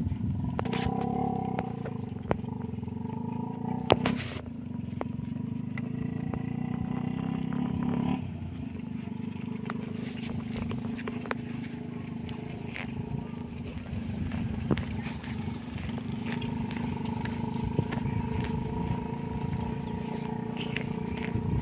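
A flock of sheep bleating, with drawn-out calls overlapping, over a steady low hum and scattered small clicks. The hum drops in level about eight seconds in.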